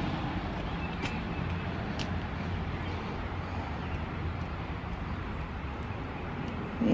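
Steady low hum over outdoor background noise, with a couple of faint ticks about one and two seconds in.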